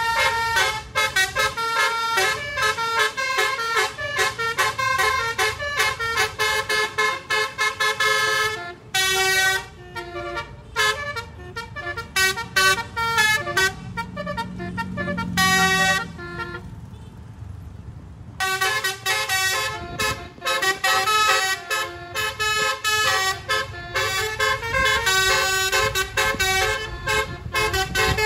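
Basuri multi-tone 'telolet' bus horn playing a fast melody of short notes. The tune stops for about two seconds past the middle, leaving only the running engine, then starts again.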